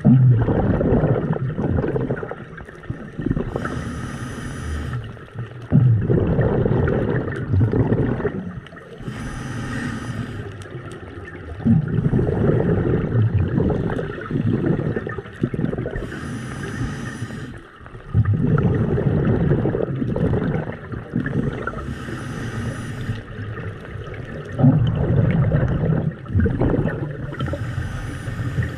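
Scuba diver breathing through a regulator underwater: a short hiss on each inhalation about every six seconds, five in all, each followed by a longer gurgling rush of exhaled bubbles.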